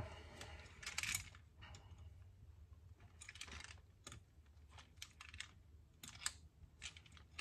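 Scattered light clicks, taps and short scrapes of soft-jawed pliers against the metal tension hooks and brackets of a banjo rim, as the goatskin head is gripped and pulled to work out a crease.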